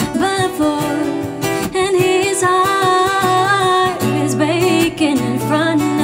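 A song with a singing voice over guitar, played back on a hi-fi system through an Eversolo DMP-A6 Master Edition streamer and loudspeakers.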